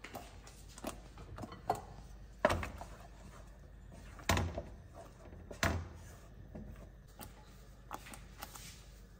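About six separate knocks and clunks of a wooden spatula against a stainless steel saucepan as a thick tomato sauce is stirred, the loudest about two and a half, four and a half and six seconds in.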